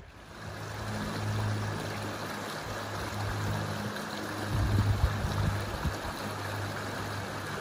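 Shallow rocky river flowing: a steady rush of running water, with a low hum coming and going underneath.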